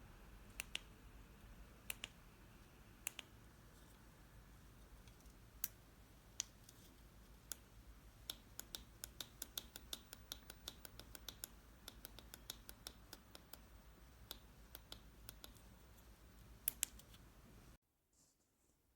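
A run of small, sharp clicks over a quiet background hum. The clicks are sparse and irregular at first, then come several a second through the middle, and the sound cuts off abruptly near the end.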